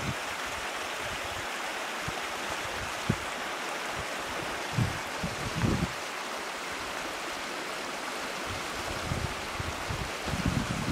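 Small moorland stream running steadily under a stone bridge, a constant rushing hiss of water over rocks. A few brief low bumps of wind buffeting the microphone come around the middle and near the end.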